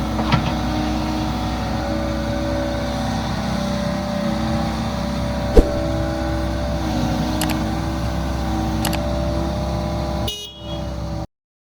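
Hitachi ZX75UR-3 mini excavator's diesel engine running steadily, with a few sharp clicks or knocks, the loudest about five and a half seconds in. Near the end the running sound dips and a short high-pitched tone sounds before the sound cuts off abruptly.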